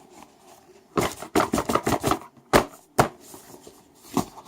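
Boxes being worked out of a tightly packed cardboard shipping carton: a quick run of knocks and scrapes, then three sharp single knocks.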